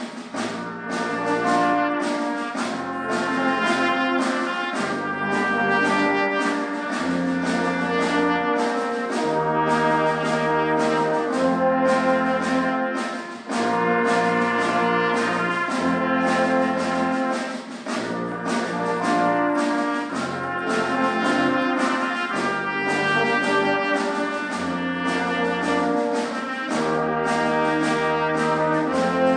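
Brass ensemble of trumpets, trombones and low brass including a tuba, playing held chords that change every second or two over a tuba bass line.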